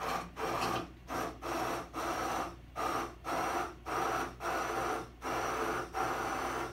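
Handheld electric immersion blender pulsed on and off in a tall jar of tomato pizza sauce, its motor whirring in short bursts a little more than one a second as it chops the sauce smoother.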